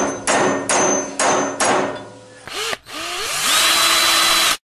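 Workshop-tool sound effects for a logo intro: about five sharp strikes in quick succession, then a motor spinning up and running loudly before cutting off suddenly near the end.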